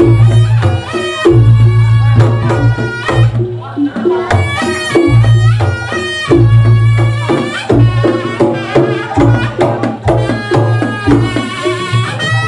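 Reog Ponorogo gamelan music led by kendang drumming: quick, dense hand-drum strokes over a steady low sustained pulse, with a pitched melody line running above.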